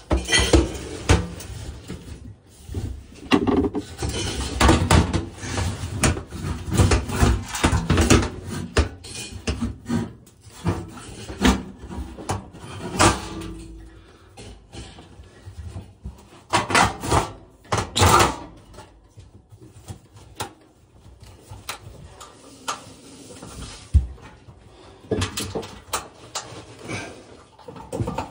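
Metal oven floor cover being slid and set back into the oven cavity, with irregular scraping, rubbing and knocking of sheet metal against the enamelled oven walls.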